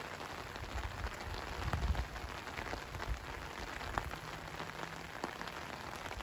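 Heavy rain falling steadily: a dense hiss of drops with many small ticks through it, and a low rumble swelling briefly about two seconds in.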